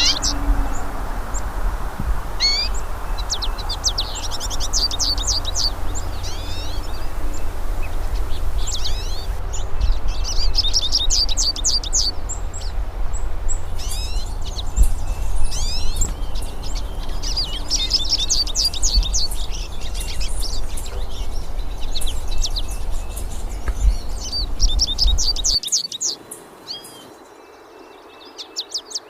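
Several hooded siskins (pintassilgos) singing: long runs of fast, high twittering notes in repeated phrases, over a steady low rumble that cuts off suddenly near the end.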